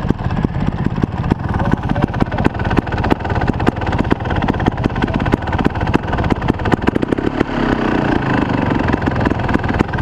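Trials motorcycle engine idling, heard close up from a camera mounted on the bike, its firing a fast, even stutter.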